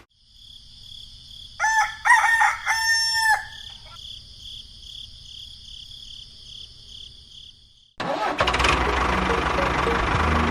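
A rooster crows once, about two seconds in, over a steady high-pitched ringing. About eight seconds in, a loud engine-like running noise cuts in suddenly.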